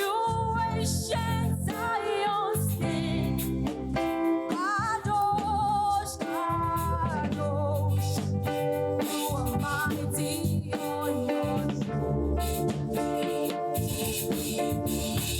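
Church choir singing a gospel praise song, with instruments playing low notes and a regular beat.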